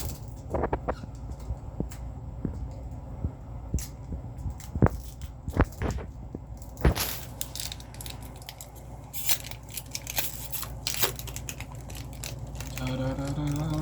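Foil Pokémon booster pack wrapper being crinkled and torn open, with irregular sharp crackles and snaps.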